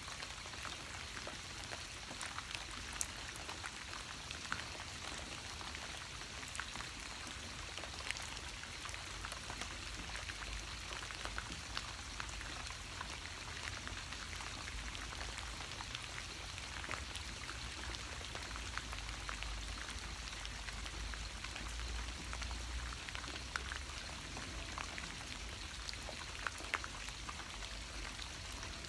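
Steady rain falling, with many individual drops striking close by as short, sharp taps over an even hiss.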